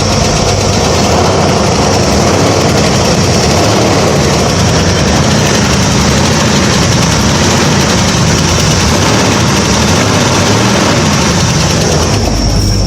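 An engine idling steadily, with a low even rumble and a constant high whine on top.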